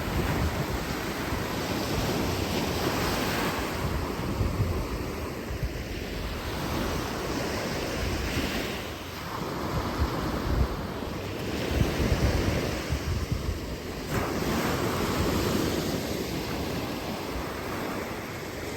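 Sea waves breaking and washing in, the surf noise swelling and easing every few seconds, with a sharp surge about fourteen seconds in. Wind buffets the microphone with a low rumble throughout.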